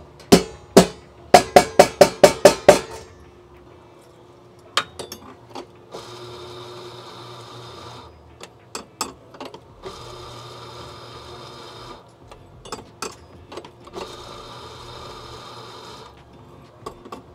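Espresso portafilter rapped against a knock box in a quick run of about nine sharp knocks, then an espresso grinder running in three bursts of about two seconds each, with clicks and taps between them.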